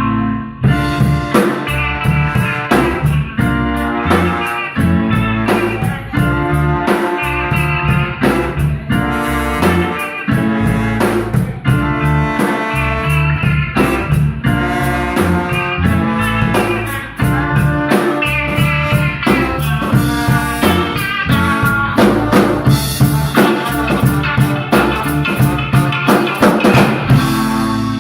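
Live instrumental band playing a song without vocals: a drum kit keeps a steady beat under pitched melody and bass lines.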